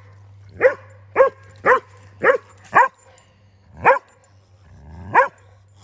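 Poodle barking at an inflatable crocodile toy: a run of five quick barks about half a second apart, then two more, more spaced out.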